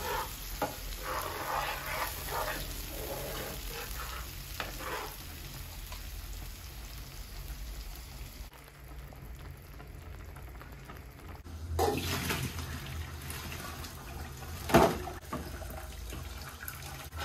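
Tomato sauce sizzling in a frying pan while a slotted spatula stirs and scrapes through it. About twelve seconds in, a kitchen tap runs into a sink, with one sharp knock shortly before the end.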